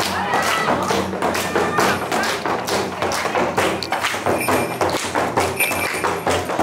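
Rhythmic thumping and tapping of bare feet stamping on a tatami floor in a dance, about three beats a second, with music underneath.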